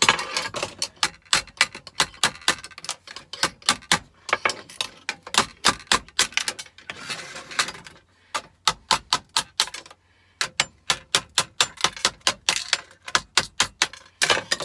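Hammer tapping a steel chisel in quick light strikes, about four or five a second, chipping MOSFETs off a circuit board, with short breaks between runs.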